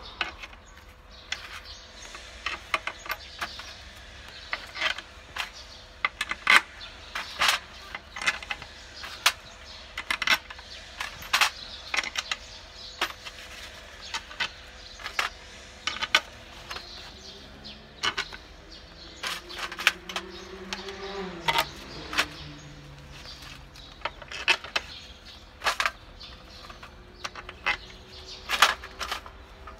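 Bolts and small metal parts clinking in a steel tray and against the engine head as they are handled, in irregular sharp clinks.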